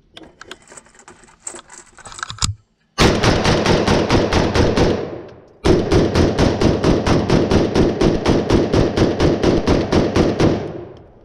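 AR-style rifle fired rapidly: a string of shots lasting about two seconds, a brief pause, then a longer string of about five seconds at roughly six shots a second. A few light handling clicks come before the shooting.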